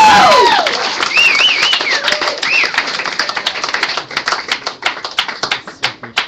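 Audience applauding with whoops and whistles, the clapping thinning out to a few scattered claps that stop near the end.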